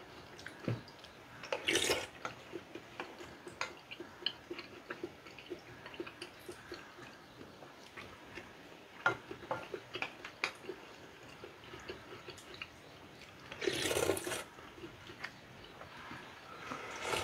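Mukbang eating sounds of rice-cake and dumpling soup: scattered small clicks of chopsticks against a ceramic bowl and chewing, with two louder wet slurps of broth, one about two seconds in and a longer one near the end.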